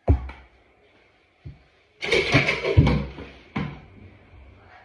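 Small basketball bouncing and thudding on a hard tile floor in a small bare room: a few separate knocks, then a busier run of quick thuds about two seconds in.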